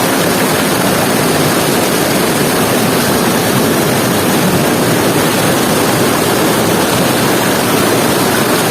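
Loud, steady rush of water from a small waterfall.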